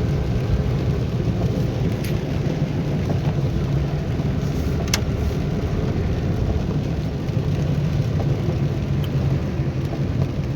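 Car driving: a steady low rumble of engine and road noise, with a few faint clicks.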